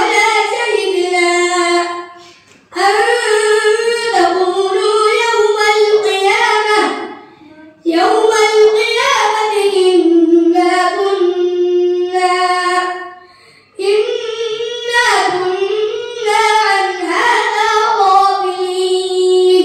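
A boy reciting the Quran in the melodic tajwid style into a microphone. Four long, drawn-out phrases, with short breaths between them.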